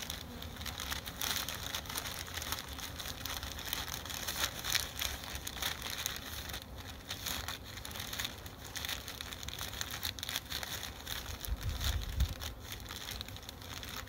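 A rice-filled brown paper bag crinkling and rustling as it is pressed and smoothed flat by hand, with the rice grains shifting inside. There is a brief low bump a little before the end.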